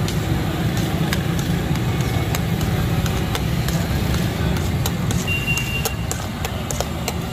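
Chicken frying on a large street-stall tawa, with a steady low rumble under it and scattered sharp clicks and scrapes of a long steel spatula working the food on the hot iron.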